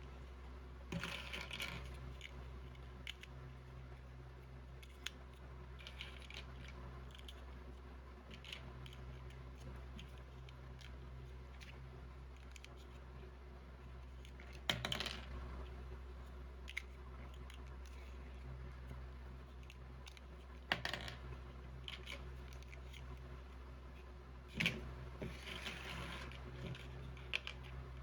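Scattered clicks and rustles of small plastic building-block pieces being handled, a few sharper clicks standing out, over a faint steady low hum.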